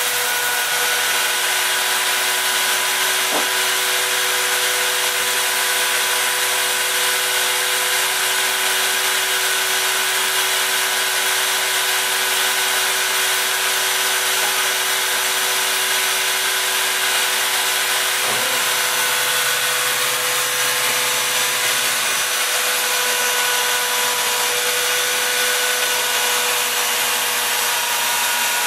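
Homemade CNC router running steadily: a high spindle whine and hiss as the bit cuts slots in a white sheet. The motor tones shift a couple of times, about three and eighteen seconds in, as the machine changes moves.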